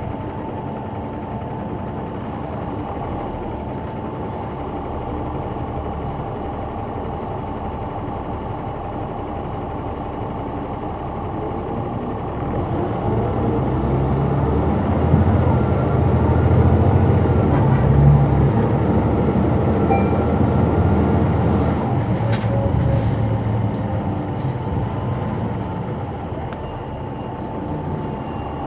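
Caterpillar C9 ACERT diesel engine of a Neoplan AN459 articulated bus, heard from the rear of the bus, running steadily. From a little under halfway through its low rumble builds as the engine comes under load, then it eases off again near the end.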